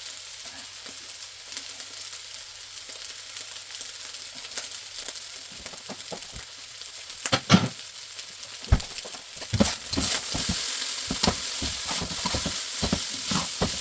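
Beef fried rice sizzling in a hot frying pan with a steady hiss. From about halfway a utensil scrapes and knocks against the pan again and again as the rice is stirred; the first knock is the loudest.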